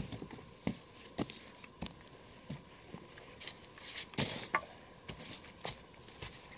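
Footsteps in heavy boots crunching through dry, frost-covered leaf litter, a step roughly every half second or so. There is a denser burst of crunching and rustling about four seconds in, as the walker clambers over a fallen log, and then the steps go on.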